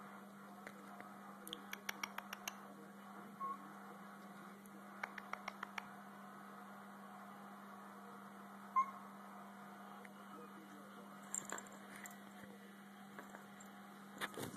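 Quiet room with a steady low hum, two quick runs of light clicks, and a couple of brief high beeps, the second the loudest; more clicks come near the end.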